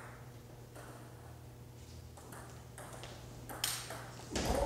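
Celluloid-style table tennis balls ticking off bats and the table in rallies: a series of sharp ticks at uneven intervals, over a steady low hum. Near the end there is a louder, fuller burst of sound.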